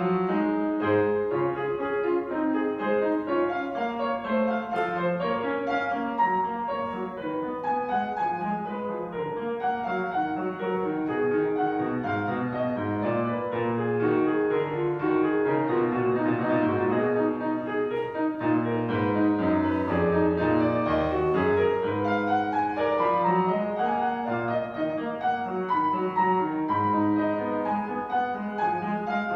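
Grand piano played solo: a continuous classical piece of many quick, overlapping notes.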